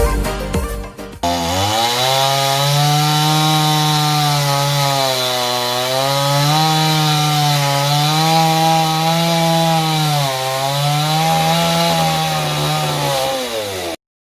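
Chainsaw engine running at high revs, its pitch sagging and recovering a few times as the chain takes load in the wood, then cutting off suddenly near the end.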